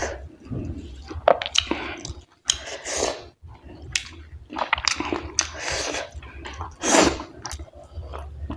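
A person chewing and eating wheat dhido with chicken curry close to the microphone: wet, irregular chewing and mouth smacks, with one louder noisy burst about seven seconds in.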